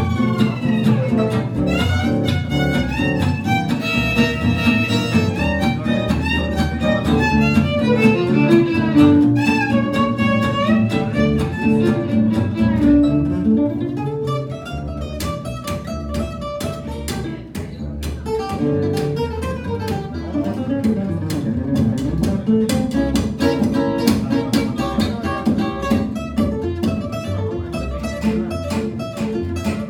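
Live acoustic string band playing: a violin carries a gliding melody over strummed acoustic guitar and plucked upright double bass. About halfway through, the violin drops out and steady, even guitar strumming takes over the lead, with the bass continuing underneath.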